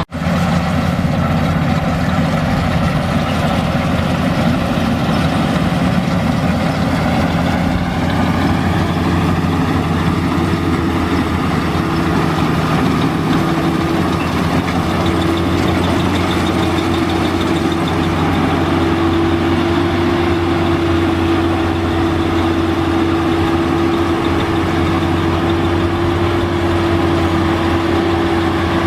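Rice combine harvester running steadily: a low, even engine drone, joined about halfway through by a steady higher whine.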